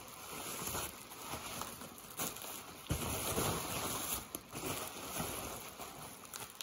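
Packing material rustling and crinkling as a boxed elevator call station is unwrapped and handled, with scattered small clicks and a knock about three seconds in.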